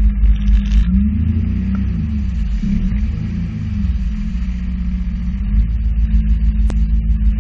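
Sea-Doo jet ski running on the water, a heavy low rumble whose engine note rises and falls between about one and four seconds in.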